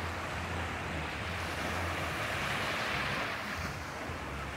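Sea surf washing on a sandy beach: a steady rush that swells a couple of seconds in and eases off again, over a low steady rumble.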